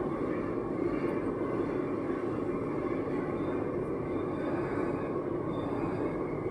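Steady running noise of an AS-02 metro train, heard from inside the car as it travels along the line: an even rumble with no breaks.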